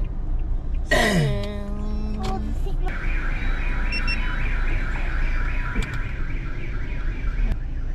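A high electronic warbling tone, pulsing rapidly for about four and a half seconds, after a pitched sound about a second in that glides steeply down and holds a low note briefly.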